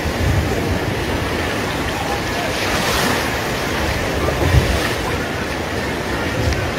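Muddy floodwater rushing in a torrent down a street, a steady loud rush of water. Wind buffets the microphone a few times, hardest about four and a half seconds in.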